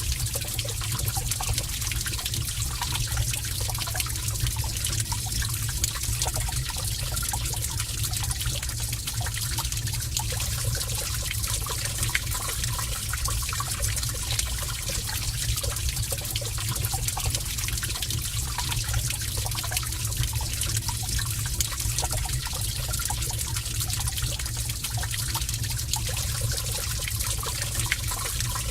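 Heavy stream of water running steadily in a cave, a continuous rushing and splashing.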